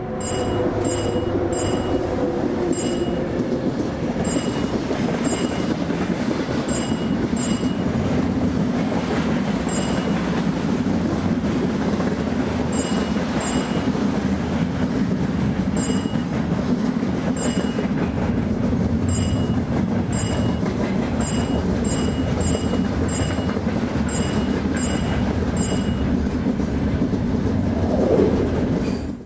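A train passing at a level crossing: a steady, loud rumble of wheels on rail with sharp clicks about once a second, irregularly spaced. It ends abruptly near the end.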